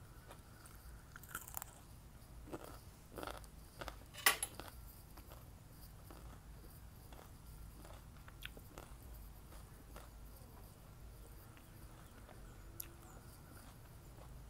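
Close-up mouth sounds of crunching and chewing a raw cucumber slice, with a sharp crunchy bite about four seconds in, then softer chewing over a steady low hum.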